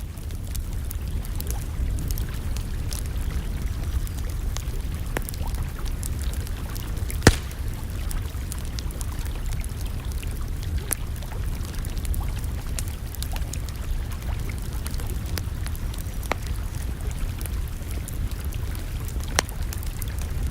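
Campfire burning with a steady low rumble and scattered sharp crackles and pops. The loudest pop comes about seven seconds in.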